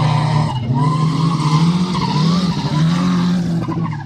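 Autocross racing buggies' engines running hard at high revs, the pitch dipping and climbing again a few times as the drivers lift and accelerate through the bends.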